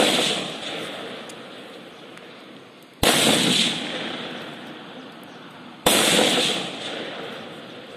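Two loud gunshots about three seconds apart, each cracking sharply and echoing away over a couple of seconds, with the echo of another shot fading at the start.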